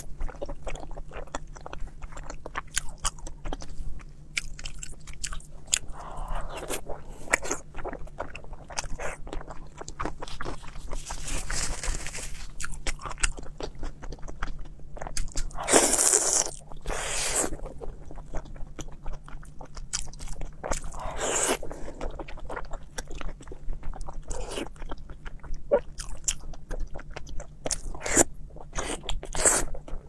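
A person biting and chewing braised pork belly, with many small mouth clicks throughout. There are louder bites about sixteen seconds in and again around twenty-one seconds.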